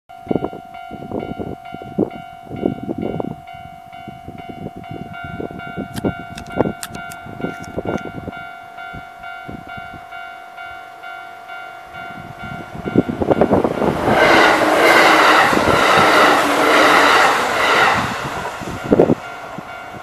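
Japanese level-crossing warning bell ringing steadily. About 13 seconds in, a much louder train sound takes over for about five seconds, then fades.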